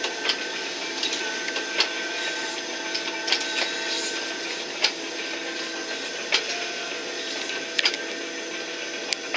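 A fishing boat's engine running steadily, heard inside the wheelhouse as a hum, with irregular sharp knocks and rattles, about ten of them, as the boat runs through choppy water.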